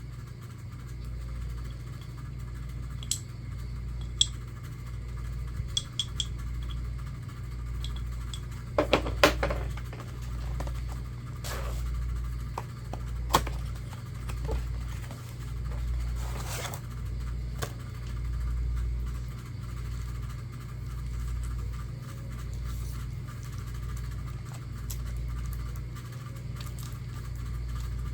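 A brake shoe's packaging being handled and opened: scattered clicks and taps, a quick cluster of knocks about nine seconds in, and a short scrape later. A steady low hum runs underneath.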